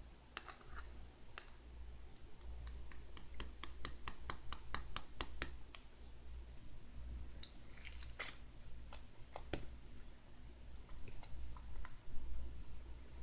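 Two-layer slime being pressed and squeezed by hand, giving sharp clicks and pops: a quick regular run of about five a second near the middle, and scattered clicks later.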